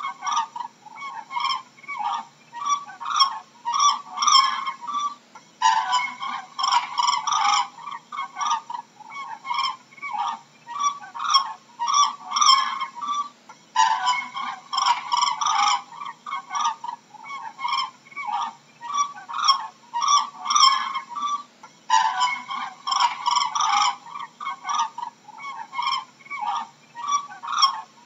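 Cranes calling, a run of short, loud honking calls. Dense bouts of several overlapping calls come about every eight seconds, with single calls scattered between them.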